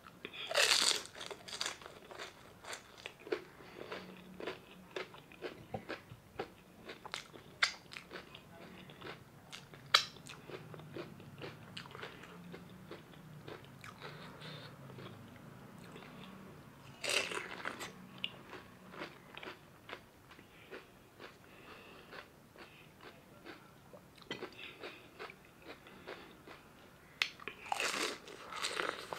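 Close-up eating sounds: crisp panipuri (golgappa) shells crunching as they are bitten, followed by chewing, with scattered sharp crunches. There are three louder spells of crunching: just after the start, about midway, and near the end.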